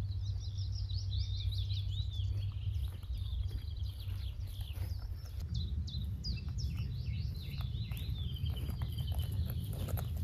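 Wild birds singing, a busy run of short chirps and trills, over a steady low rumble. Near the end a person's footsteps on grass come close.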